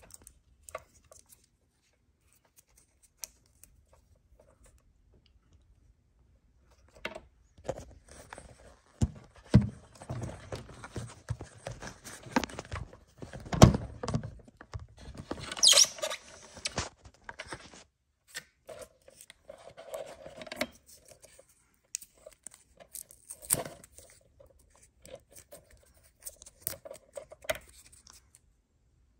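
Handling noise while unpacking: a few isolated clicks, then from about seven seconds in a busy run of knocks, rustling and scraping, with a sharp rustle about sixteen seconds in and scattered knocks after.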